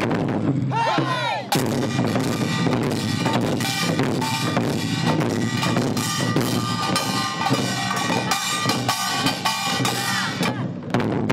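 An ensemble of Korean barrel drums (buk) beaten with wooden sticks in a steady, driving rhythm, with a sustained pitched melody running above the drumming.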